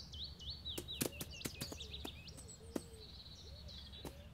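Garden birdsong: small birds chirping in quick runs of short high notes, with a few light clicks and taps on top.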